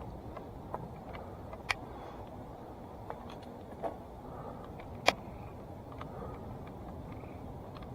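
Salsa Timberjack hardtail mountain bike rolling over a dirt trail: steady tyre rumble with sharp clicks and knocks from the bike, two of them standing out, the loudest about five seconds in.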